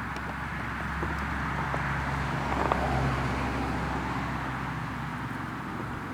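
A road vehicle passing: its noise swells, is loudest about halfway through, then fades, with a low engine hum underneath.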